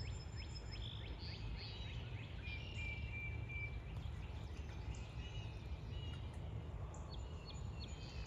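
Outdoor ambience: several birds chirping and calling, with a longer whistled note around the middle, over a steady low rumble.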